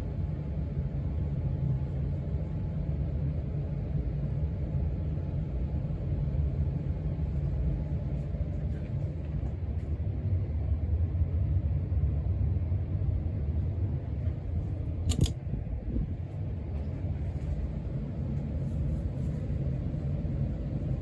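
Casablanca Panama II ceiling fan with its XLP 2000 motor running at speed: a steady low rumble of moving air with a faint steady hum, and no bearing noise from the original bearings. A single sharp click about fifteen seconds in.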